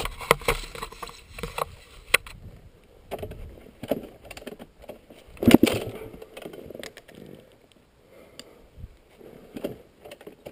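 Irregular knocks, clatter and rustling of a rider handling a stalled dirt bike, with one louder knock about halfway through; the engine is not running, having bogged down and died.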